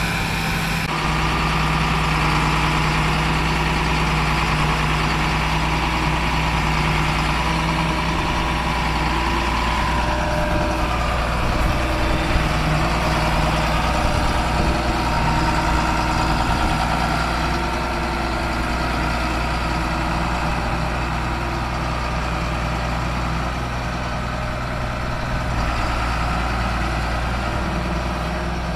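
John Deere 4955 tractor's six-cylinder turbo diesel idling steadily.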